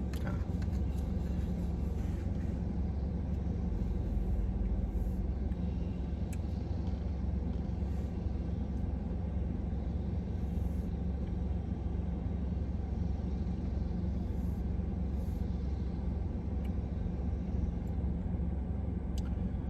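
Steady low rumble of an idling car, with a faint hum and a few small clicks.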